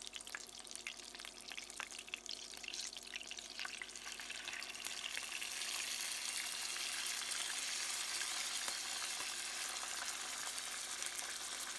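Miya no tare steak sauce hitting a hot frying pan around hamburger patties and sizzling. It starts suddenly with lots of sharp crackling pops, then builds over the first few seconds into a steady, dense sizzle.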